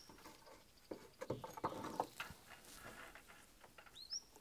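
Synthetic shade-cloth mesh rustling and scraping against a wooden board as it is pulled up and hung over forged hooks, with a few soft knocks in the first half. A bird gives a short rising chirp near the end.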